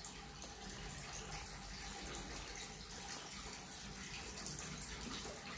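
Faint, steady brushing: a bristle brush scrubbing leftover coffee grounds off the inner wall of a Kinu M47 hand grinder's metal burr housing.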